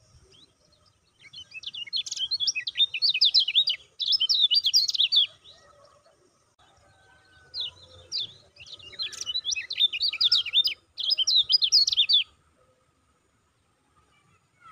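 Kecial kuning white-eye singing two long bouts of rapid, high, chattering chirps, each lasting several seconds with a short pause between.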